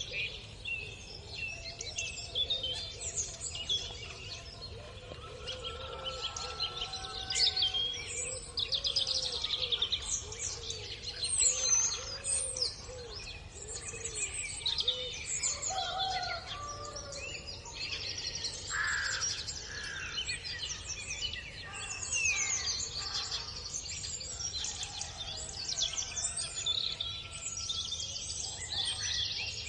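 Dawn chorus of many songbirds singing and calling at once: overlapping chirps, trills and high whistles, with a bird repeating lower arching notes for several seconds in the first half. A steady low rumble lies underneath.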